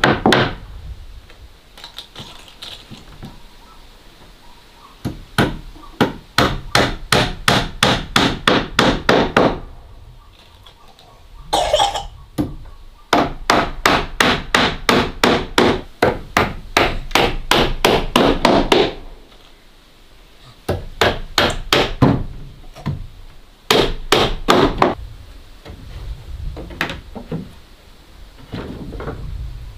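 A hammer nailing wooden boards, in runs of quick, even blows about three a second with short pauses between.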